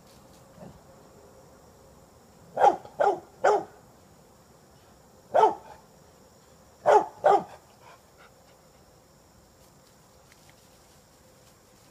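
English springer spaniel barking at vultures in the trees: three quick barks, a single bark, then two more.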